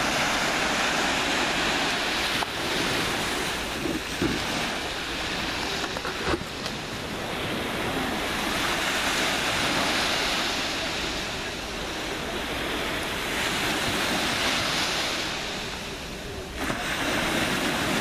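Small sea waves breaking and washing up a sand-and-pebble beach, a steady surf that swells and eases every few seconds.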